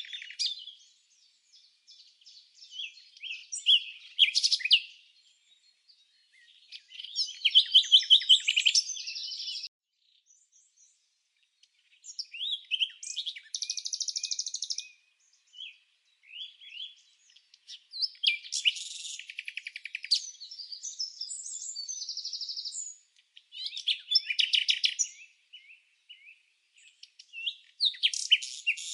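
Songbird singing in phrases of rapid high chirps and trills, each lasting one to three seconds, with short silent pauses between them and no other sound beneath.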